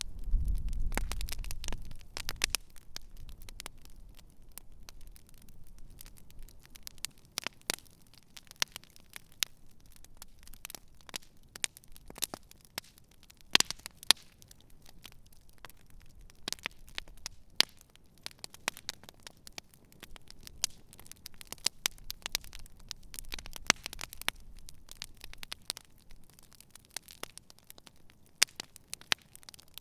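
Wood campfire crackling, with sharp, irregular pops and snaps and a couple of louder snaps about halfway through. A low rumble sits under the first couple of seconds.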